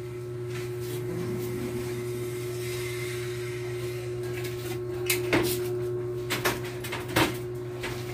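A handful of sharp clicks from a hand caulking gun as it is worked while sealing a window frame. They fall in the second half, over a steady low hum.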